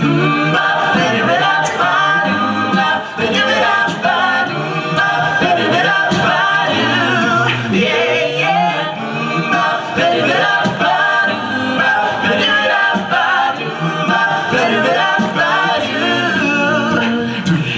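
Male a cappella group singing a pop medley in close harmony, with a sung bass line and no instruments.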